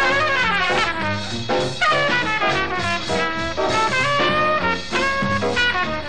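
Swing-style jazz with brass, played from a record. It opens with a downward slide in the horns, then continues with horn lines over a steady bass.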